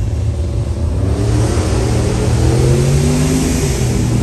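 Race vehicle's engine accelerating hard down the strip, its note climbing and growing louder from about a second in.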